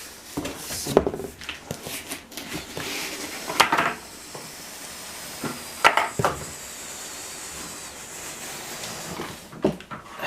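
Large cardboard boxes being handled: an inner cardboard box scraping and knocking against the outer shipping box as it is worked out, with several sharp knocks and rustles and a steadier scraping hiss in the second half.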